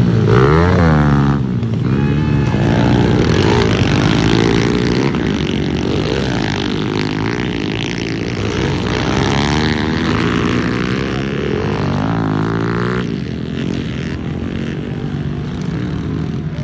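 Several pit bikes racing, their small engines revving up and down and shifting, with pitches rising, falling and overlapping. The engine noise falls off somewhat about thirteen seconds in.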